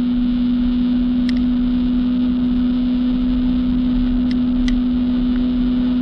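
Jet ski engine running at a steady, unchanging pitch over a constant rushing noise.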